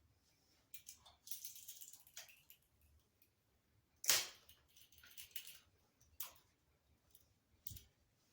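Plastic zip tie being pulled tight, its ratchet clicking rapidly for about a second. A few more sharp plastic clicks and snaps follow; the loudest comes about four seconds in.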